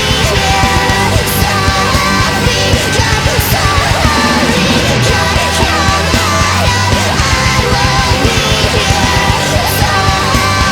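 Nightcore edit of a metalcore song, sped up and pitched up: yelled vocals over a dense, loud full band with fast drums.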